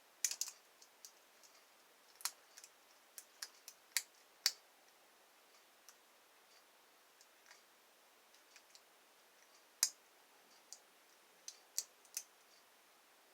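Lock being picked: faint, irregular metallic clicks and ticks from a pick working the pins inside the lock, with a few sharper clicks scattered through.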